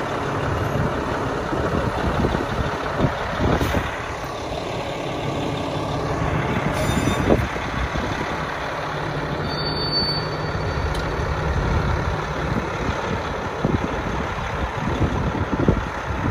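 Diesel engine of a Brandt road-rail truck running steadily as it works along the rails pushing a cut of hopper cars, with a few knocks along the way.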